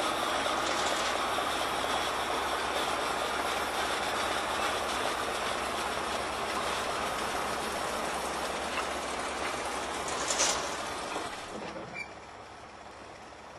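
Small diesel shunting locomotive running steadily while hauling a steam engine out of the shed at walking pace, with its wheels rolling on the rails. A brief sharp high-pitched noise about ten seconds in, and then the sound drops much quieter about twelve seconds in.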